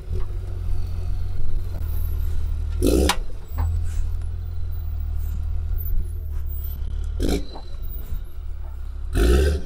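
Nurol Makina Yörük 4x4 armoured vehicle running, a steady low drone, with a few brief louder noises about three, seven and nine seconds in.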